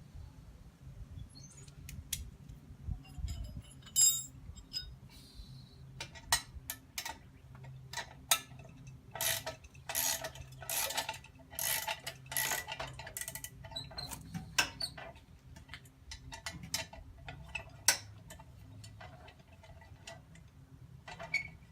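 Irregular metal clicks and short scraping strokes of a socket wrench working bolts loose on an old metal toy excavator, with clinks of tool on metal. The strokes come thickest about halfway through.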